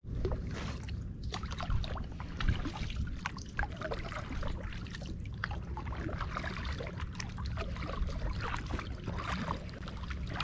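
Kayak paddles dipping and pulling through calm water, with irregular drips and small splashes from the blades, over a low steady rumble.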